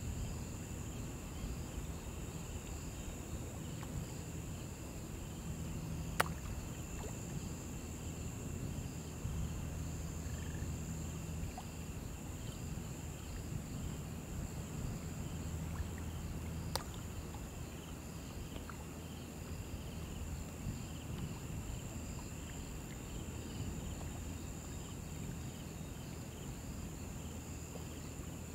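Shallow river flowing with a low, even rush of water under a steady chorus of summer insects: a constant high buzz and rapid, repeating chirps. Two sharp clicks stand out, about six and seventeen seconds in.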